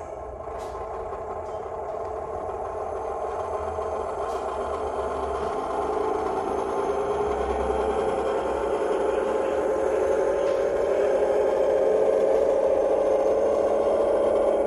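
Sound decoder playing a Class 128 diesel parcels railcar's engine sound through the small speaker of an O gauge model, running under power. It grows steadily louder, and its note rises slightly in the second half.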